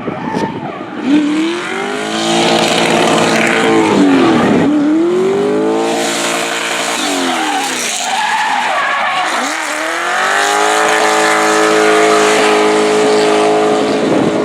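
Drift car engine revving hard, its pitch climbing and dropping several times as the throttle is worked on and off, over tyres squealing in a slide.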